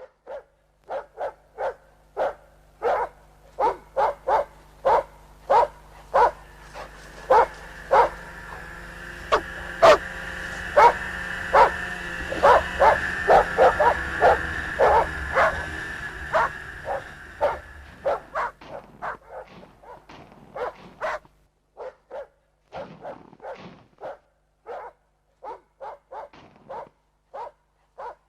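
Hunting dogs barking repeatedly, about two barks a second, over a steady background hum that cuts off suddenly about three-quarters of the way through; the barking carries on after it.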